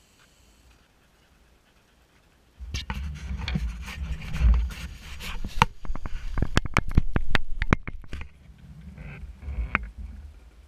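Action camera being picked up and handled: rubbing and scraping against the housing and microphone, with a run of sharp clicks and knocks. It starts abruptly about two and a half seconds in, after a quiet stretch.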